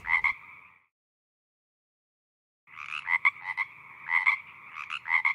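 Frog croaking in pulsed calls: a short burst at the start, then a longer run of several croaks from about three seconds in, with dead silence between.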